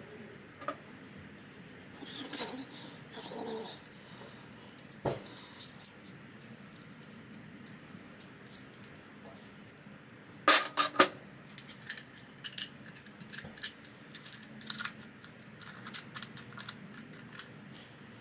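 Small metal wastegate parts clicking and clinking against each other as they are handled, with the loudest cluster of clinks about ten and a half seconds in.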